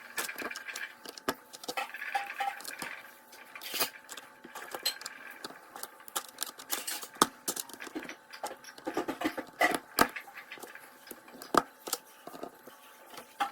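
Plastic Lego bricks clicking and rattling, handled and pressed together in irregular sharp clicks.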